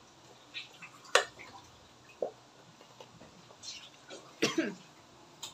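Scattered clicks and crinkles from a cardboard cream carton being squeezed and scraped out over a bowl with a spoon, with a sharp click about a second in. A louder, short messy sound with a falling pitch comes about four and a half seconds in.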